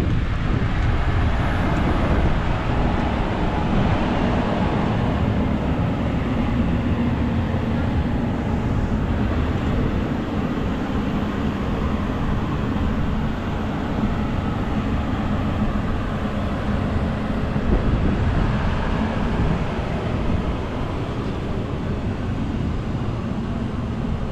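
Jet engine noise from an Airbus A330 MRTT's two Rolls-Royce Trent 700 turbofans: a loud, steady rumble with a faint low hum, holding level through the whole stretch.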